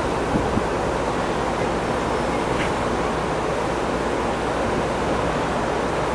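Steady rush of wind and water on the deck of a car ferry under way, with the ship's engines droning low underneath.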